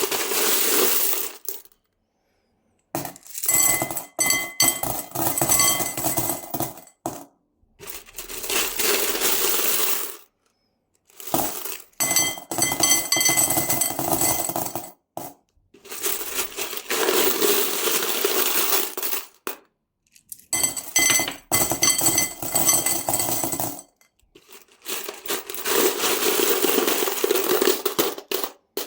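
Metal coins poured and tumbling onto a pile, jingling and clinking with a bright metallic ring. They come in about seven bursts of a few seconds each, with short silences in between.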